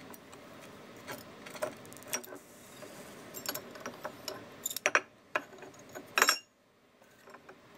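Irregular metal clicks, clinks and scrapes as steel tweezers and tongs work a freshly cast sterling silver ingot out of a steel ingot mould. The loudest knocks come about five and six seconds in.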